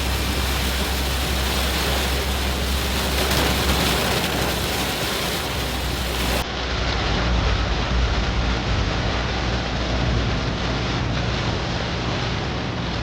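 Heavy rain pouring down on a Suzuki Wagon R as it drives along a wet road, a steady hiss of rain and spray over a low rumble of tyres and engine.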